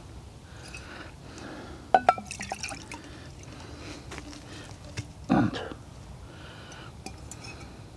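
Water poured from a bottle into a metal mug to rinse it out, splashing, with a sharp knock about two seconds in.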